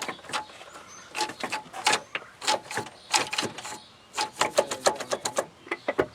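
Short shift lever and shift linkage of a 2000 VW New Beetle, fitted with an Audi TT shifter, being worked through the gears: an irregular run of sharp clicks and clunks, some with a brief metallic ring, as the linkage is still being set up.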